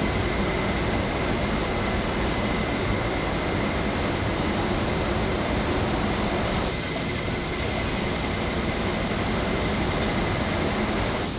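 Steady factory machinery noise from an overhead conveyor line carrying racks of pliers through a processing machine, with a thin high whine running over it. The sound thins a little in the middle range about two-thirds of the way through.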